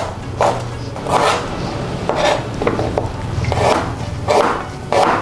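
A Neo Blade stainless-steel chef's knife slices through galangal and then ginger root, each cut landing on a plastic cutting board as a short, sharp tap. There are about eight cuts at an uneven pace.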